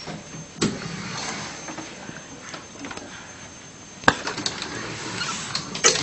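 Rustling and a few scattered knocks, the sharpest about four seconds in and a quick cluster near the end, over a faint steady high whine.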